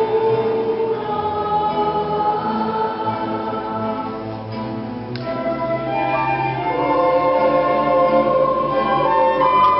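Choir singing a Nahuat-Pipil song in held, sustained notes with orchestral accompaniment, swelling louder in the second half.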